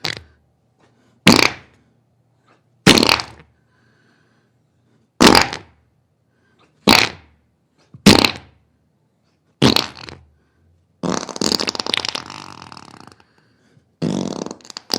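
Diarrhea sound effect: a string of seven short fart noises a second or two apart, then two longer, sputtering ones near the end.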